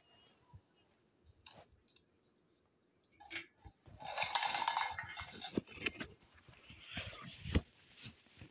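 Stacked plastic cups clattering as a cockatoo knocks down the cup pyramid: a noisy rush of tumbling cups about four seconds in, then scattered clicks and taps of cups hitting the floor.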